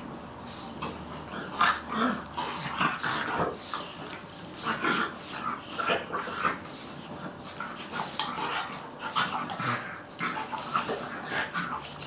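Two dogs play-fighting: short growls and yips in quick, irregular succession, mixed with scuffling.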